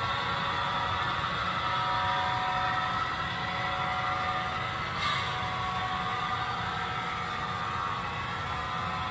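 Model train running past on the layout track: a Kansas City Southern F3A locomotive pulling autorack cars, making a steady mechanical whir with one brief click about five seconds in.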